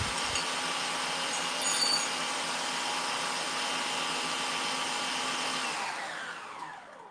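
Electric stand mixer whisking egg whites and caster sugar for meringue, a steady motor whine. About six seconds in it is switched off, and the motor winds down, falling in pitch until it stops. A brief ringing clink about a second and a half in.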